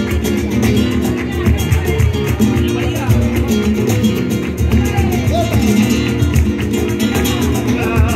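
Live flamenco-style Christmas villancico: a man singing through a microphone and PA over acoustic guitar, with a steady beat of hand-clapping (palmas).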